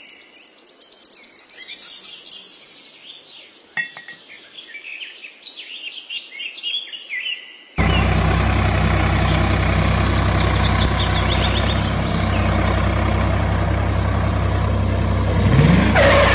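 Birds chirping over a quiet background. About halfway through, an engine's steady running cuts in abruptly and continues to the end.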